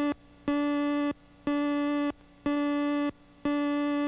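Countdown leader beeps on a television news tape slate: a steady buzzy tone about half a second long, sounding once a second with each number of the count. The tail of one beep is followed by four full beeps.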